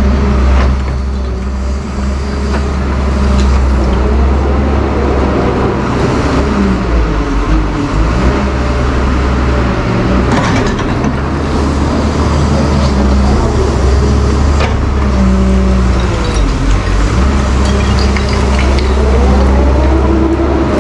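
Doosan wheeled excavator's diesel engine running under load while it digs and swings, its pitch rising and falling as the hydraulics work. A few sharp knocks, the loudest about ten seconds in.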